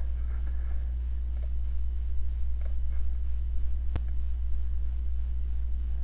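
Steady low electrical hum on the recording, with one sharp click about four seconds in.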